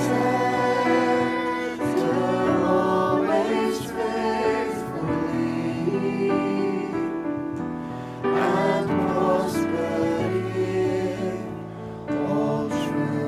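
A Christian worship song: sung vocals over instrumental accompaniment.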